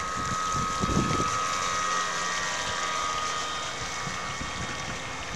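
Small battery-powered electric motor of a Nor-Star model boat whining steadily as the boat runs across the water, its pitch drifting slightly; a brief gust of wind on the microphone about a second in.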